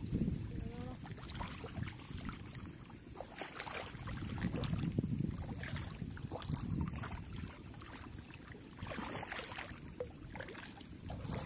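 Hands sloshing and splashing through shallow muddy water while groping for fish by feel. The water churns unevenly, with scattered small splashes and louder stirrings now and then.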